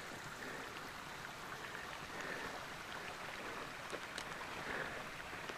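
Footsteps and faint clicks of a hiker walking a rocky mountain path, over a steady rushing background hiss.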